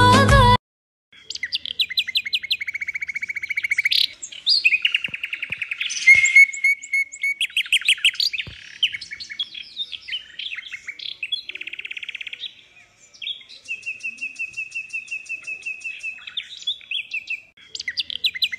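Small songbird singing a long series of rapid trills and chirps, with short pauses between phrases.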